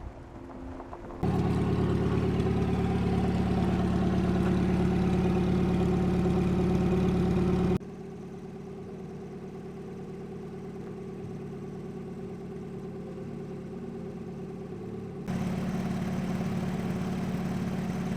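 Vehicle engine and road noise while driving, a steady low hum, most plausibly the 1993 Toyota 4Runner. It comes in three cut-together stretches, stepping up suddenly about a second in, dropping near eight seconds and rising again near fifteen seconds.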